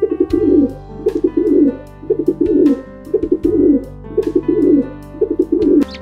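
Pigeon cooing: low, throaty coos repeated a little more than once a second.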